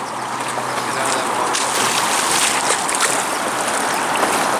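River water rushing and lapping around a drift boat and its oar blade: a steady hiss with many small splashes, a little louder from about a second in.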